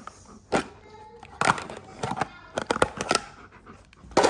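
Irregular knocks and clatters with scuffling, about seven sharp hits, typical of a dog playing with a toy on a hard floor.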